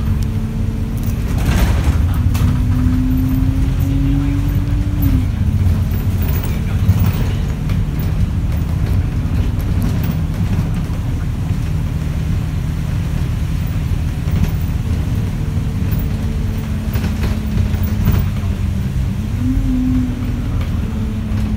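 Alexander Dennis Enviro200 single-deck bus under way, heard from inside the saloon by the front doors: a steady low engine and road rumble. Twice the engine note climbs and then drops sharply at a gear change, about five seconds in and again near the end. A few brief knocks and rattles sound along the way.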